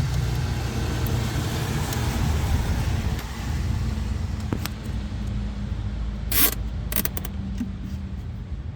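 Steady low vehicle-like rumble, with a few short clicks and one sharper rustling noise about six and a half seconds in.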